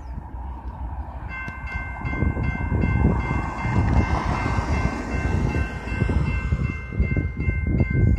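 Railroad crossing warning bell starting up about a second in and ringing steadily, with evenly repeated strokes, as the crossing activates for an approaching train. Wind buffets the microphone underneath.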